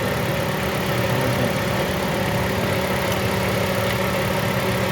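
Toyota Corolla GLi's four-cylinder petrol engine idling with a misfire: one cylinder is not firing.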